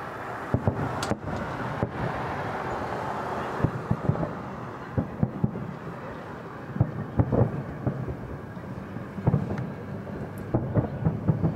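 Aerial firework shells bursting overhead: an irregular series of booms and sharp cracks, several in quick succession, with a tight cluster near the end.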